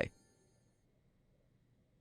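Near silence, with a faint ringing tone fading out in the first second.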